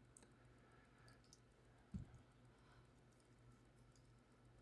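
Near silence, with a few faint small clicks and one soft knock about two seconds in, from the parts of a High Water Knives Estuary folding knife being handled and fitted back together during reassembly.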